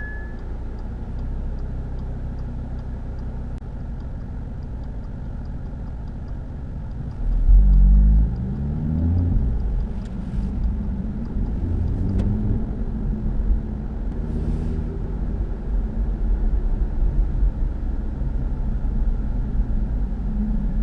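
Audi RS3 8V's five-cylinder engine and tyre noise while driving, the engine revving up and pulling hard about seven seconds in. A high steady brake squeal from the car's own brakes cuts off just as the sound begins.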